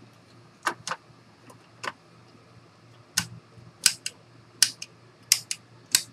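CISS ink cartridges clicking and snapping as they are pressed down into an Epson XP-series printer's print-head carriage: a string of sharp, irregular plastic clicks, about nine in all.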